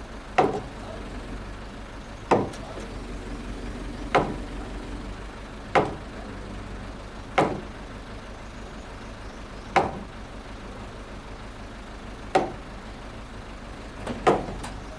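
Eight heavy hammer blows on timber, about one every two seconds, the last one doubled, as the wooden frame's joints are driven together. A steady low engine hum runs underneath.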